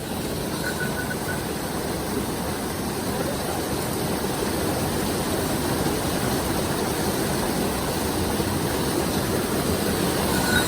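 A small mountain stream rushing, a steady even noise of running water.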